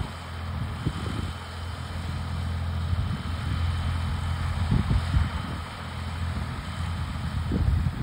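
Ford farm tractor running steadily under load as it pulls a John Deere 410 round baler through windrowed hay, with a few low irregular surges near the middle and end.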